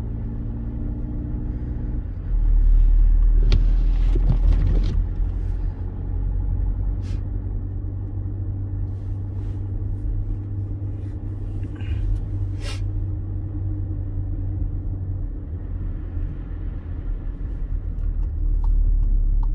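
A car's engine and road noise heard from inside the cabin while driving: a steady low rumble that grows louder for a few seconds near the start and again near the end, with a few brief knocks.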